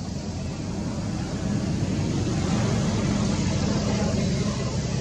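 A motor vehicle's engine running close by, a steady low hum that grows louder through the middle and eases slightly near the end, as of a vehicle passing.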